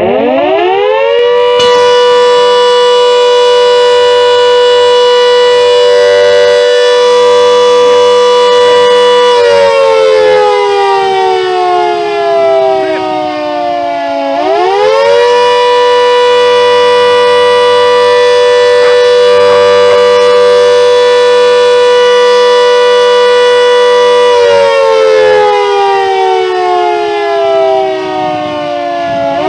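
Country Fire Service siren, loud, winding up from low at the start and then wailing in long slow cycles with a buzzy, overtone-rich tone. Each cycle holds a steady pitch for about eight seconds, slides down over about five seconds, then winds quickly back up; it falls twice. The siren is sounding to alert the Country Fire Service.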